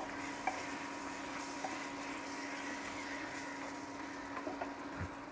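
Meat, onion and spices sizzling as they are stir-fried in a pressure cooker, with a wooden spatula scraping and knocking against the pot a few times. Under it runs a steady electrical hum from the induction cooktop.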